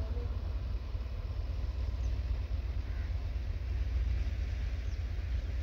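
Open-air farmyard ambience: a steady low rumble under everything, with a crow cawing at the very start and a few faint bird chirps.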